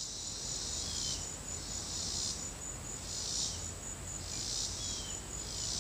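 Insect chorus chirring: a steady high-pitched trill with louder pulses about once a second, each followed by a short falling chirp.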